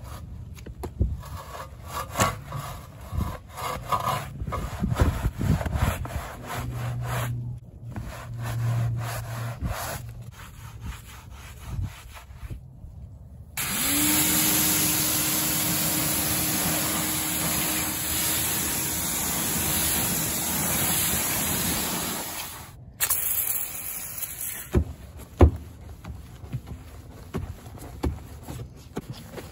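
Soft detailing brush scrubbing a foam-covered alloy wheel with quick, uneven rubbing strokes. About halfway through, an electric pressure washer starts spraying and rinses the wheel and tire with a loud, steady hiss over its pump's hum for about nine seconds, then cuts off. Near the end, a stiff brush scrubs the soapy tire sidewall.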